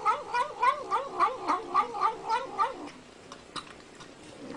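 An animal's wavering call, rising and falling in pitch about four times a second for roughly two and a half seconds, then stopping.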